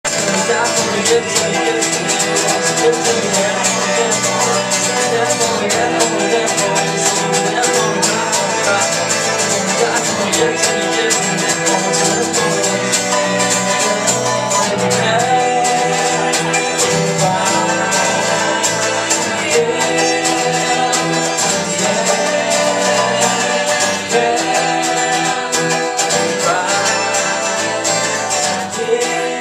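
Live acoustic music: a guitar playing with a singing voice.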